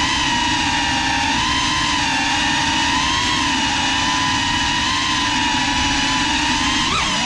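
GEPRC Cinelog 35 cinewhoop's ducted propellers and brushless motors whining in flight at fairly steady throttle, the pitch wavering slightly. Near the end the whine briefly dips and climbs back as the throttle is cut and reapplied.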